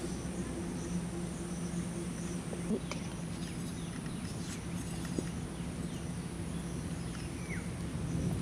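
Forest insects chirping steadily: an even high shrill, with a pulsing chirp in the first couple of seconds, over a low steady hum. A few faint clicks and scrapes come from a blade digging into mossy soil.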